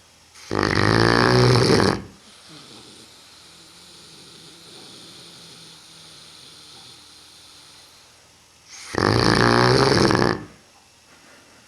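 Neapolitan mastiff snoring in its sleep: two long, loud snores about eight seconds apart, with softer breathing between them.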